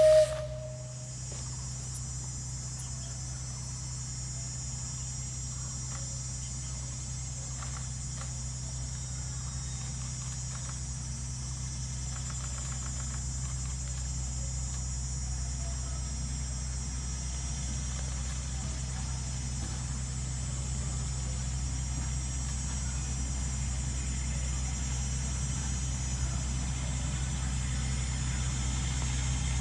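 Steady high-pitched insect buzzing, over a low rumble that slowly grows louder.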